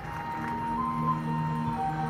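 Marching band show music: soft, held chords come in about half a second in, with a high note stepping up and back down above them.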